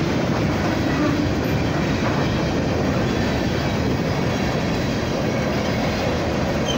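Empty coal cars of a freight train rolling across a bridge: a steady, unbroken noise of steel wheels on the rails.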